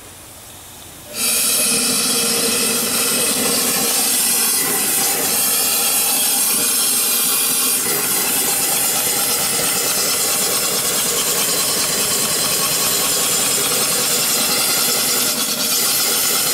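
Small single-cylinder steam engine on a vertical boiler, started about a second in: a sudden, loud, steady rush of steam as it runs.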